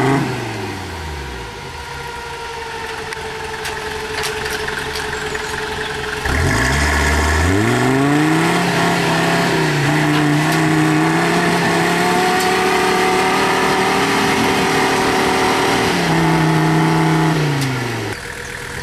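GAZ-69 4x4's engine under off-road load. Its revs drop to a low running speed at the start, climb sharply about six seconds in and stay high for about twelve seconds, then fall back near the end.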